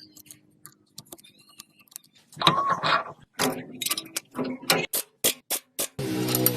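A run of sharp taps and knocks, a few a second, then a steady droning machine sound that starts near the end.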